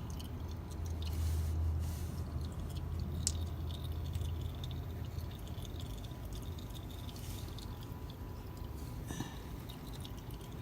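Engine oil dripping and trickling from the opened drain on the oil filter housing, faint, over a steady low hum.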